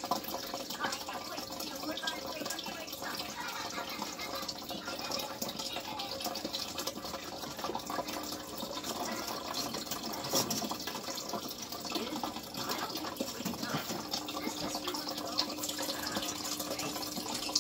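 Water running and trickling steadily in a turtle tank, with small drips and splashes throughout, the sound of the aquarium's filter outflow. A faint steady hum joins near the end.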